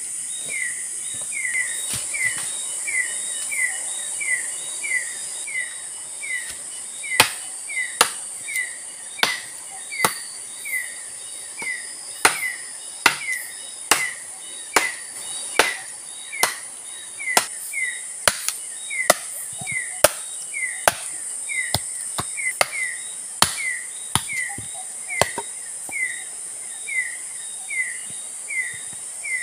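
Sharp strikes of a tool on wood, irregular, about one a second, growing louder and more frequent several seconds in. Under them, a steady high insect drone and a short falling chirp repeated about twice a second.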